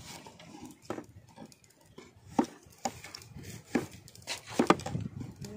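A large curved chopping blade cutting a tomato against a wooden log: a string of sharp, irregular chops, about seven, the louder ones in the second half.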